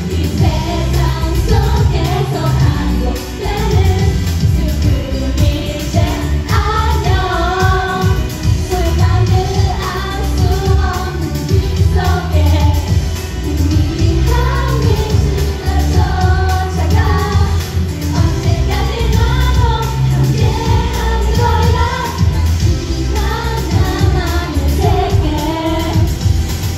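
Loud pop music with a heavy bass beat, and female voices singing into microphones on stage.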